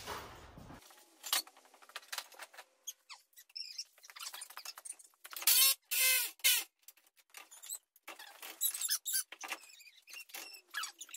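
Hand-tool work on a rusted truck's front-end sheet metal: scattered sharp clicks, scraping and short metallic squeaks, loudest in a cluster about six seconds in.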